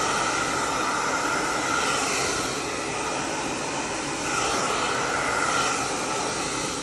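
Handheld hair dryer running steadily, a whooshing blow with a constant whine, as it pushes wet acrylic paint across the canvas. It eases off slightly near the middle and comes back up a little after four seconds.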